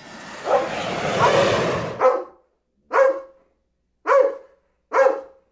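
Dog barking: a rough, noisy stretch of about two seconds, then four single barks about a second apart.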